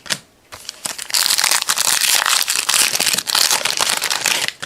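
Foil trading-card pack wrapper crinkling loudly as it is torn open and handled, starting about a second in and stopping just before the end.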